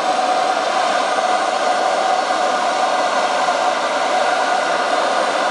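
The engine of a radio-controlled model F-15 jet running steadily on the ground: a loud, even rushing whine with a held tone.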